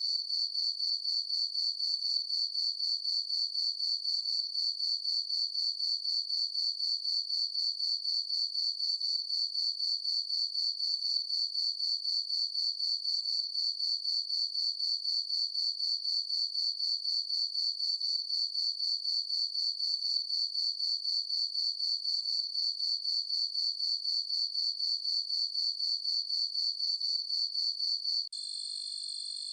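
Cricket chirping in a high-pitched, rapid and evenly pulsed trill. Near the end it cuts abruptly to a different, smoother and steadier insect trill.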